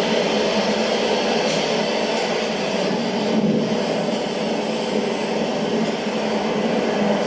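Steady jet airliner engine roar, played as the sound of the plane taking off and flying.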